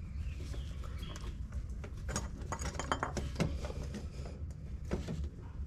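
Light metallic clicks and rattles of a Renault Sandero's front stabilizer bar link being worked by hand into its yellow polyurethane bushing, clustered about two to three and a half seconds in and once more near five seconds, over a low steady hum.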